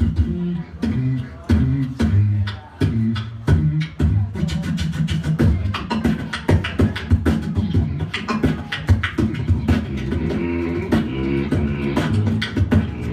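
Beatboxing through a handheld microphone: a steady run of mouth-percussion clicks and snares over a low hummed bassline that steps between notes.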